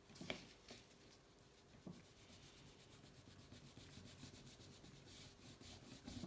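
Faint rubbing of fine wet sandpaper on the painted body of a small die-cast toy car, taking the paint down. A light tap about a third of a second in, and quicker repeated strokes near the end.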